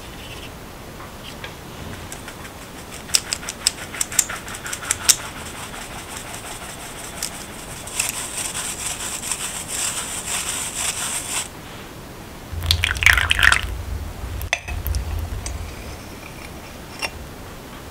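Metal mesh sieve of flour being tapped and shaken over a glass bowl: a quick run of sharp ticks, then a few seconds of steady hiss as the dry powder sifts through the mesh. A louder scraping clatter follows about halfway through.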